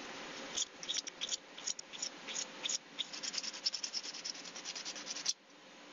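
Sandpaper rubbed by hand over a small wooden ring of Caribbean rosewood and wenge in quick, uneven back-and-forth strokes, rounding over its outside face. The strokes stop suddenly near the end, leaving a fainter steady hiss.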